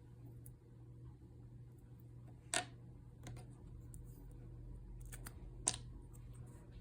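Slime being handled: two sharp pops, about three seconds apart, with fainter clicks in between.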